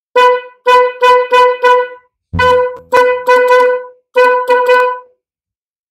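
Bosch snail horn on a Honda ADV 150 honked in about a dozen short blasts, in three quick bunches, all at one steady pitch. Only one horn of the pair is sounding; the other, which should add a second tone, is dead.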